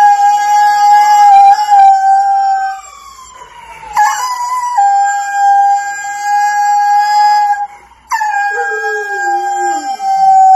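Two huskies howling together in long, loud held notes that glide up and down in pitch. The notes break and restart about four and eight seconds in. Near the end a second, lower howl slides steadily downward under the main one.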